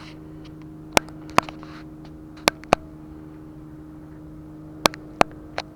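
About seven short, sharp clicks at irregular moments over a steady low hum.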